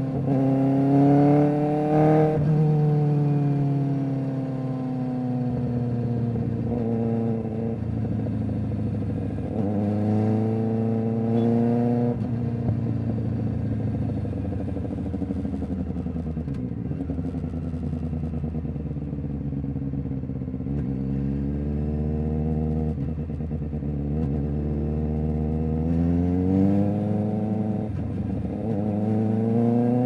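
2023 Kawasaki Ninja ZX-4RR's 399 cc inline-four running through an SC-Project exhaust. It pulls up through the revs and eases off several times, with a long, slow fall in pitch in the middle and a rise again near the end.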